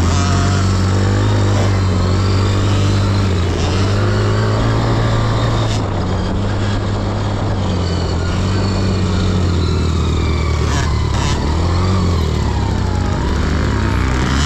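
Dirt bike engine running while riding on a trail, its revs rising and falling.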